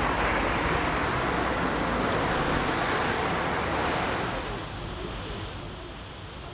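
Steady rushing noise that drops away about four and a half seconds in.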